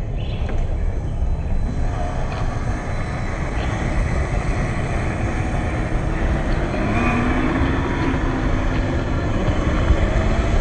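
Electric drivetrain of a 1/10 scale MST CFX RC crawler, a brushed 27T motor and gears, whining and rising in pitch as the car speeds up across dirt, over a steady low rumble.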